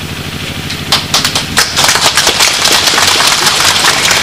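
Crowd applauding: many hands clapping break out about a second in and carry on as a dense patter of claps. Under it runs a steady low engine-like hum.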